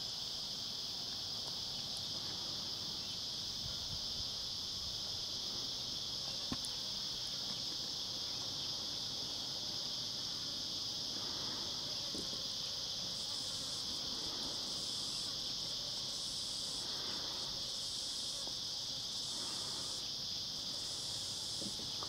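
Cicadas calling in a steady, unbroken high-pitched drone. About halfway through, a second, higher insect call joins in, switching on and off roughly once a second.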